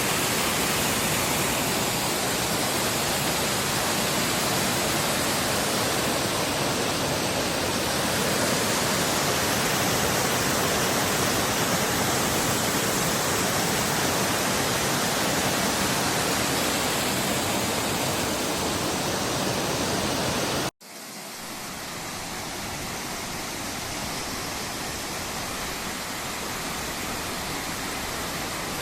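Waterfall rushing in a steady, even roar of falling water. About two-thirds of the way through the sound cuts off for an instant and comes back softer and duller.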